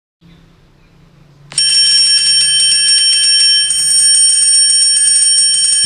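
A small bell ringing rapidly and without a break, a loud, steady, high ringing that starts about a second and a half in: the ice-cream vendor's (sorbetero's) bell opening the song's backing track.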